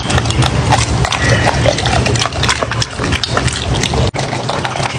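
A puppy eating dumplings from a bowl: chewing and lip-smacking in a quick, dense run of clicks and smacks.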